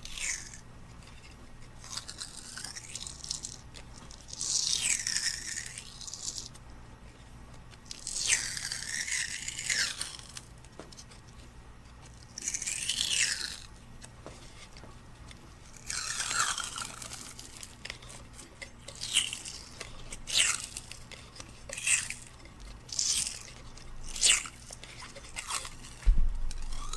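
Cloth hockey tape peeling off the roll as it is wound around a hammer handle, in repeated pulls. The pulls are longer, about a second or two each, in the first half, then shorter and quicker, roughly one a second, in the second half.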